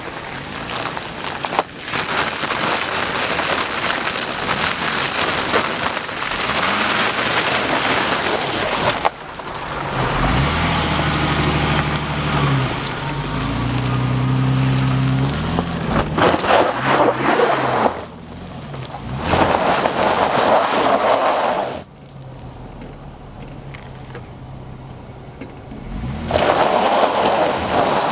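Off-road vehicle ploughing through mud puddles: heavy splashing and spray of water and mud against the vehicle. The engine revs up and down partway through, and the sound changes abruptly several times.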